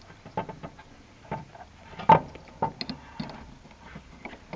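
Irregular light clicks and knocks of small parts being handled and fitted, with a sharper knock about two seconds in.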